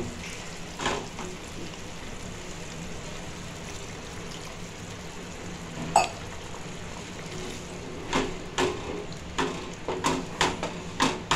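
Wooden spatula stirring thick kidney-bean curry in a pan, scraping and knocking against the pan: a few knocks about a second in, one sharp knock midway, and a quick run of them near the end. Under it is the steady low hiss of the curry simmering.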